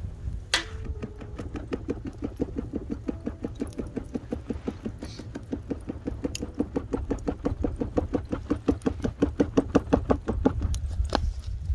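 Hand fan beating over the barbecue charcoal to bring it up to heat: a fast, even run of short flapping strokes, about five a second, that starts with a sharp click and stops near the end.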